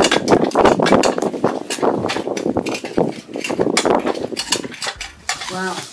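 A utensil stirring in a cooking pot with rapid, continuous scraping and knocking, easing off about five seconds in.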